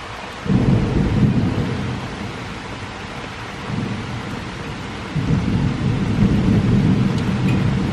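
Steady rain falling with thunder rumbling. The low rumble starts suddenly about half a second in, eases off, then builds again about five seconds in.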